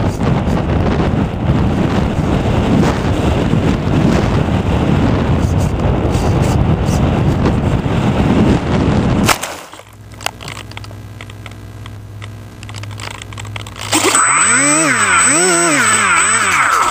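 Wind rushing over the onboard camera microphone of an RC plane in low flight, cut off about nine seconds in by one sharp impact as the plane comes down in the grass. A quieter steady hum follows. In the last few seconds a loud pitched sound rises and falls over and over, with a thin high steady whine above it.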